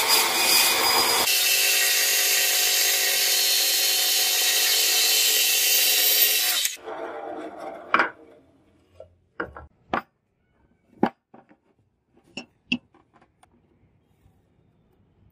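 Bandsaw running and cutting through a wooden block, a steady loud motor hum with sawing noise that cuts off about six and a half seconds in. A handful of sharp knocks and taps follow.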